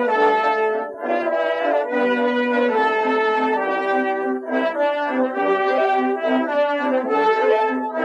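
Background music: a melody of long held notes that change pitch every second or so.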